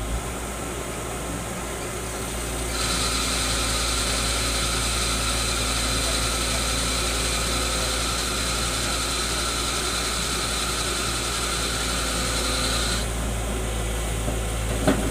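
JCB's diesel engine running under load, with a steady high hydraulic whine for about ten seconds as the machine works the crashed tipper truck free. A single sharp knock just before the end.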